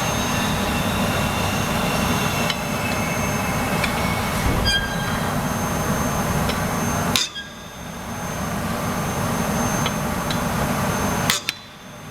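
Lug wrench working a car wheel's lug nuts loose: a few metallic clinks with short ringing and two sharp knocks, over a steady background noise.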